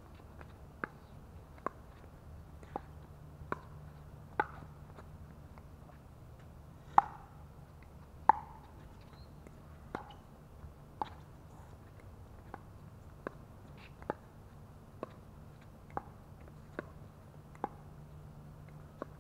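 Pickleball paddles hitting the hollow plastic ball in a doubles rally: sharp pops about once a second, two of them louder and ringing briefly about seven and eight seconds in.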